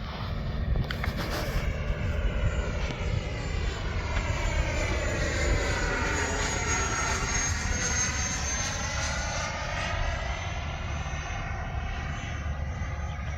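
80 mm electric ducted fan of an FMS F-86 Sabre RC jet whining as the model flies past, the high whine sliding slightly down in pitch as it passes closest about six to eight seconds in.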